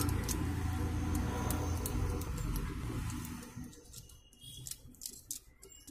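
Light handling clicks from a desoldered electrolytic capacitor as its bent leg is worked on, over a steady low hum that fades out a little past halfway.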